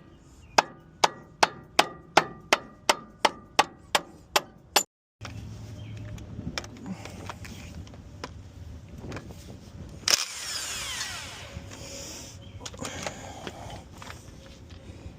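Hammer blows on metal, about three a second with a short ring after each, for about five seconds. After a break, lower scraping and clattering noise with one loud clank about ten seconds in.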